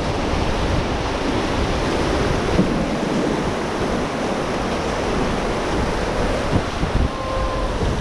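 Whitewater rapids of a fast, rocky river rushing steadily around an inflatable raft, with wind buffeting the microphone as a low rumble.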